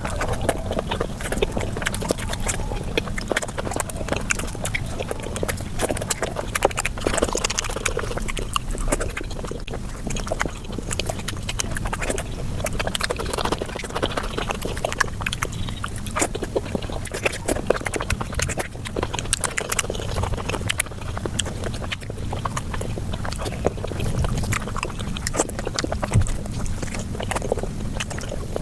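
Close-up mouth sounds of a person eating flatbread with curry: chewing and smacking, sped up to five times normal speed, so they run together into a fast, unbroken stream of clicks.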